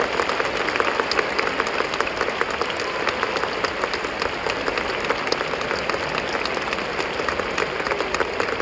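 Audience in the arena applauding steadily: many hands clapping together without a break.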